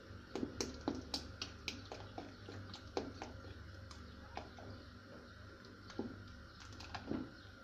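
A spoon stirring oat soup in a stainless steel pot, knocking and scraping against the pot in scattered light clicks that are busiest in the first three seconds, over a low steady hum.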